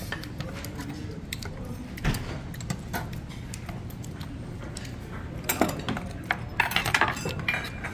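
Tableware clatter: dishes, a glass and metal utensils clinking and tapping on a wooden table, a few scattered clicks and then a busier run of clinks in the second half, over steady background noise.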